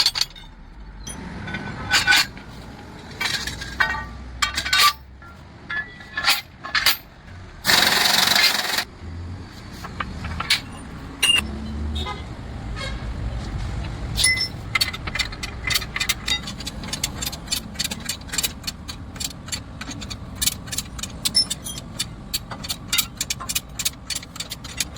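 Metal-on-metal clinks and knocks from tools at work on a truck's leaf-spring parts, with a short hiss about eight seconds in. In the second half the knocks turn into a fast, steady run of clicks.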